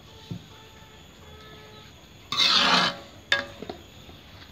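A metal ladle stirring kenikir leaves in coconut milk in an aluminium wok: a loud half-second rasping noise about halfway through, then a sharp metallic clank with a short ring and a few light knocks.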